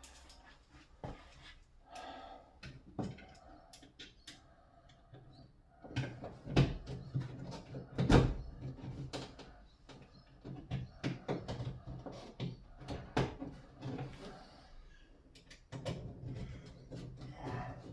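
Irregular knocks, clicks and rattles of hands working on a shower enclosure's panels and fittings, with two louder thumps around seven and eight seconds in.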